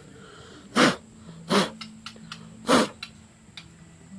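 Three short, sharp puffs of blown air, spread over about two seconds.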